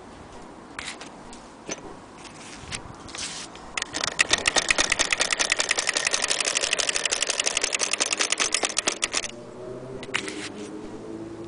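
Antique hand-crank Singer 12K fiddle-base sewing machine stitching through fabric: a few slow clicks as it is turned, then a fast, even run of mechanism clicks for about five seconds before it stops, and a couple of clicks near the end.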